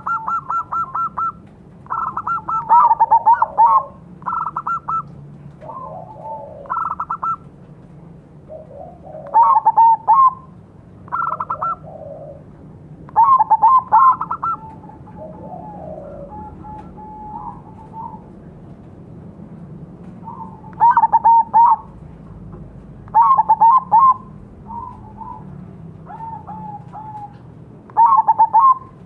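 Zebra doves (perkutut) cooing: a run of short phrases every second or two, some of quick rolling notes and some of longer held notes, at more than one pitch as other doves answer the crossbred bird.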